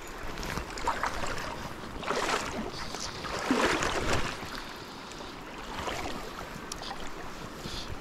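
River water sloshing and splashing, swelling louder twice, about two seconds in and again around four seconds.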